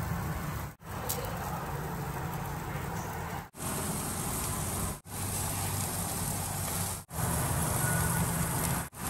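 Seasoned chicken pieces sizzling on a grill grate, a steady crackling hiss, broken by five short gaps.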